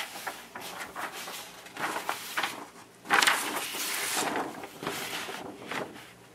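Large paper schematic sheets rustling as they are turned and handled, in a string of short irregular rustles with one longer, louder rustle about three seconds in.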